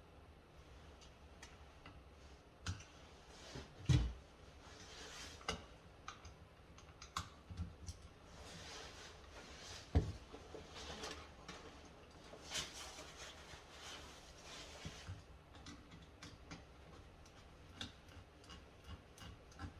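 Small clicks, taps and scraping from hands working wires onto the screw terminals of a light switch with a screwdriver, with two louder knocks, one about four seconds in and one about ten seconds in, and a stretch of scratchy rustling in the middle.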